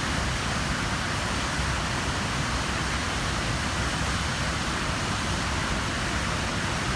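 Waterfall: the whole river drops about 7–8 m through a narrow rock chute into a granite-walled pool, a steady roar of falling water.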